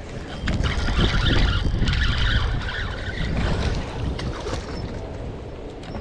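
Wind buffeting the microphone in a heavy, fluttering rumble, with a rushing hiss of wind or water that is loudest in the first few seconds.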